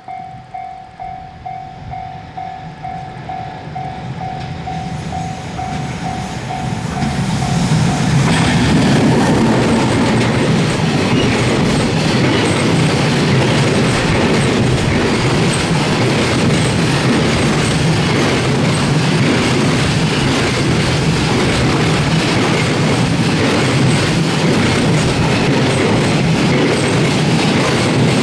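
Japanese level crossing bell ringing about twice a second as a freight train approaches. About eight seconds in, the container wagons of a JR Freight EF210 electric locomotive-hauled train arrive and clatter steadily past over the rails, loud enough to drown out the bell.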